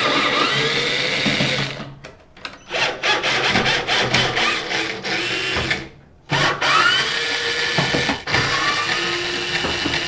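Cordless drill backing out the bolts that hold a microwave oven's magnetron, running in a few bursts of two to three seconds with short pauses between them. The motor's pitch rises as each burst starts.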